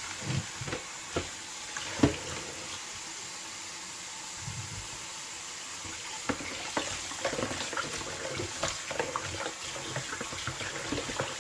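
Whole chickens being washed by hand in a kitchen sink with water running, giving irregular splashes and small clatters. There is one sharp knock about two seconds in.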